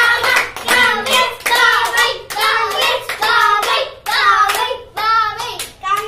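A group of adults and children chanting in unison to a steady beat, with rhythmic hand clapping.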